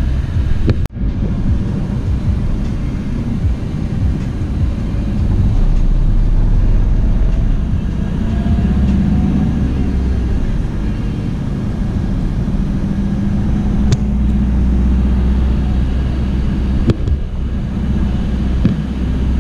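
Bus engine and road noise heard from inside the cabin while driving: a steady low rumble, with the engine note rising and settling around eight to ten seconds in.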